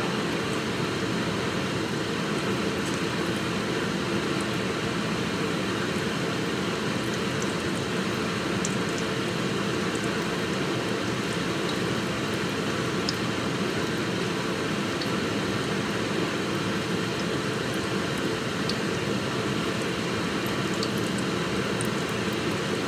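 Steady rushing noise of a blower running evenly, with a few faint clicks on top.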